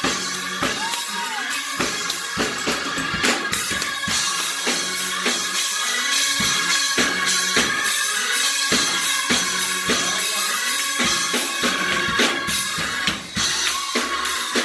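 Live band music driven by a drum kit, with bass drum and snare strokes keeping a steady beat under sustained instrument tones.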